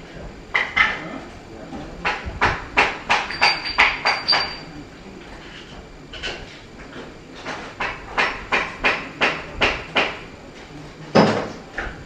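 Hammer blows in two quick runs of about three strikes a second, with a few single strikes between them and one heavier blow near the end.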